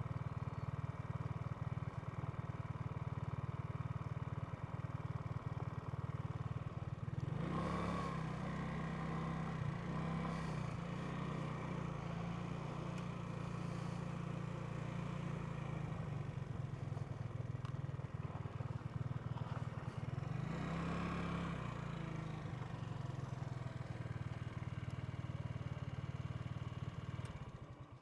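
Genuine Buddy 125 scooter's single-cylinder four-stroke engine running at low speed, with two brief rises in revs, about seven and twenty seconds in. The engine sound cuts off sharply near the end.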